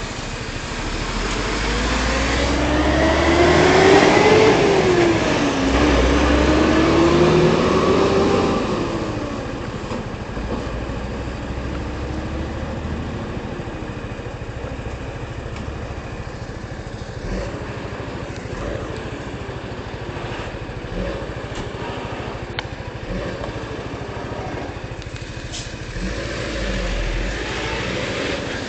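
A motor vehicle engine revving, its pitch rising and falling, loudest from about two to nine seconds in, then settling into a steady, quieter drone of engine and road noise.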